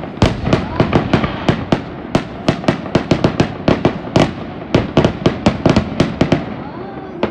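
Fireworks finale: a rapid, uneven barrage of sharp bangs and crackles from aerial shells, about four a second, easing off shortly before the end.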